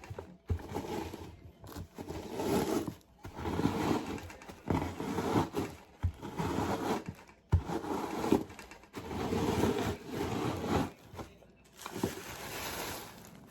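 Repeated scraping strokes of a kitchen utensil working in a mixing bowl, each a second or two long with short pauses between.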